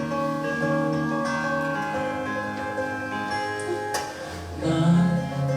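Live band playing a song's instrumental intro on guitar, with held chords, a sharp hit about four seconds in, and a low bass part coming in after it.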